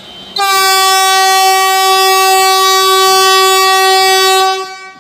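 Vande Bharat Express trainset's horn sounding one long blast on a single steady note, starting about half a second in, holding for roughly four seconds and fading out near the end.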